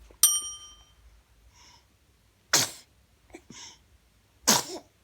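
Baby sneezing twice, about two seconds apart, each a short, loud burst. Just before, a brief ringing tone fades out.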